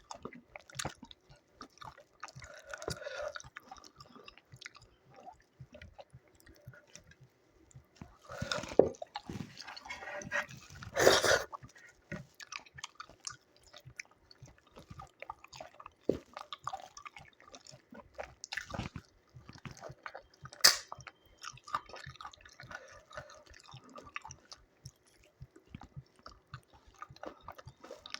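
Close-miked chewing and wet mouth sounds of a person eating by hand, with a string of small clicks and smacks. There are louder bites about 8 and 11 seconds in.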